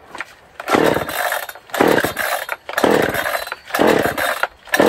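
Chainsaw being pull-started: the recoil starter cord yanked about once a second, each pull a rasping whirr as the engine turns over without catching.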